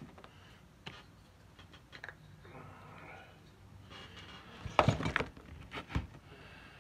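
Metal oil-pump parts clinking and knocking on the workbench as a cover plate is handled and fitted: a few scattered clicks, then a quick cluster of knocks a little past the middle.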